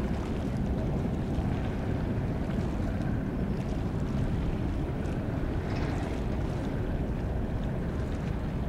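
Steady low rumble of a large ferry under way, with wind buffeting the microphone.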